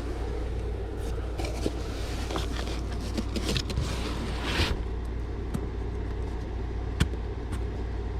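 Rustling and scraping as a comic book and packing materials are handled, with sharp clicks and taps, heaviest in the first half and ending just under five seconds in, followed by a few single taps. A steady low hum runs underneath throughout.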